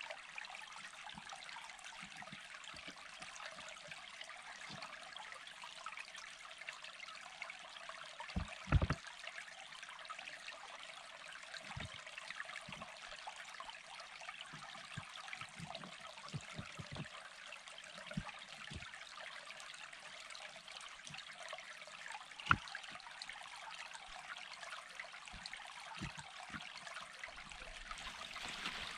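Stream water trickling steadily, with scattered knocks and clunks of flat stones being set on a dry-stone wall. The loudest clunks come about nine seconds in and again a little past twenty-two seconds.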